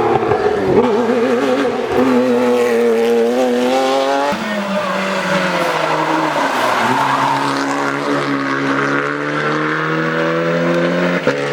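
Rally car engine running hard, its pitch rising then dropping sharply about four seconds in at a gear change, then holding and drifting at high revs.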